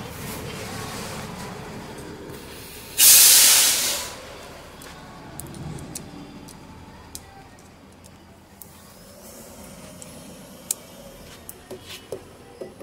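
A sudden, loud hiss of compressed air about three seconds in, lasting about a second before fading; a few faint clicks follow near the end.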